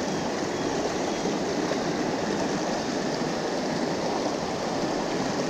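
Fast-flowing river water rushing steadily, a strong current running high after heavy rain.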